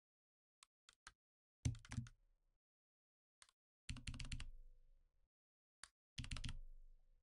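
Faint clicking from a computer mouse and keyboard: a few single sharp clicks and three short, rapid runs of clicks about 1.7, 4 and 6 seconds in.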